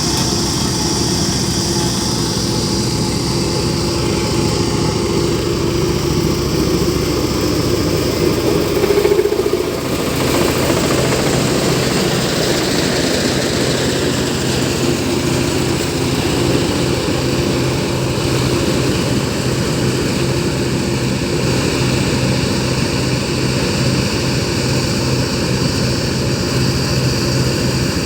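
Diesel engine of a heavy road-building machine running steadily. About nine seconds in it briefly rises in pitch and loudness, then settles to a lower steady hum.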